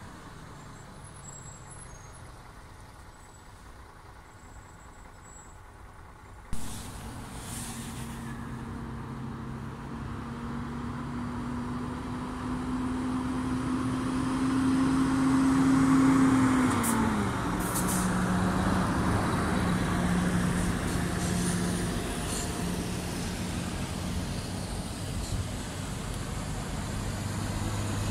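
A few quiet seconds, then a heavy lorry towing a low-loader approaches along the road: a steady diesel engine drone that grows louder, with its pitch dropping about two-thirds through, over passing traffic noise.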